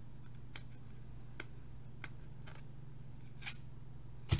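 Fingernails picking and scraping at the strong adhesive seal strip on a plastic CD case: scattered small clicks and scratches, with a sharper click near the end, over a low steady hum.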